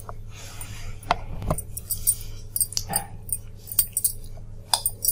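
Scattered light clicks and clinks of a serving plate being handled and moved on a table, over a low steady hum.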